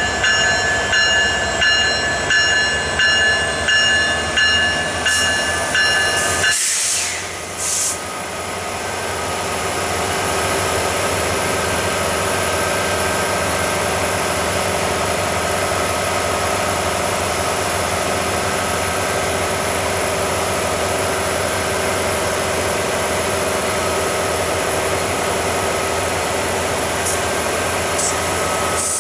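EMD SD70ACe diesel locomotive approaching slowly: its bell rings steadily for about the first six seconds, then stops, leaving the steady running of the diesel engine with a hiss.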